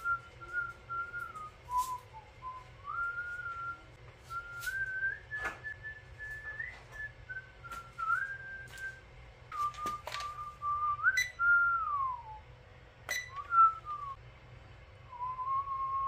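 A person whistling a wandering tune in held notes with short slides between them, with a few sharp clicks and knocks along the way.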